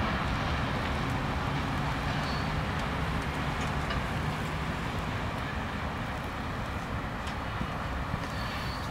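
Steady rumble of a freight train moving away past the grade crossing, fading slowly.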